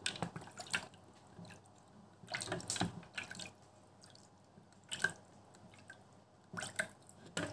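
StylPro Squeeze makeup-sponge cleaner: its plunger is pressed down into the jar of water and cleanser, squeezing the sponges. Short wet splashes and drips come at a few separate moments, with quiet in between.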